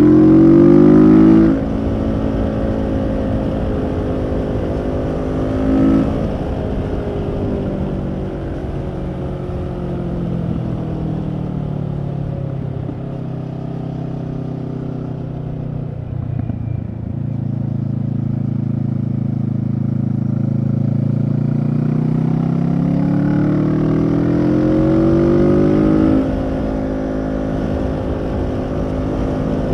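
Kawasaki Z650's parallel-twin engine through a Leo Vince EVO carbon exhaust, heard from the rider's seat on the move. It pulls loudly for the first second and a half, then the throttle closes and the note settles and slowly falls. From a little past halfway it climbs steadily in pitch under acceleration to a loud peak, then drops suddenly near the end as the throttle is rolled off.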